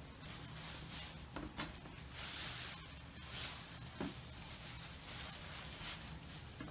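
Rustling and handling noises from something being put up by hand, with a few short hissing rustles and a sharp knock about four seconds in, over a low steady hum.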